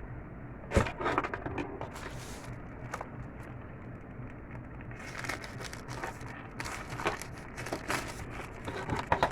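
Plastic packaging crinkling and rustling as items are handled, in irregular crackles with a single knock about a second in and denser crinkling in the second half.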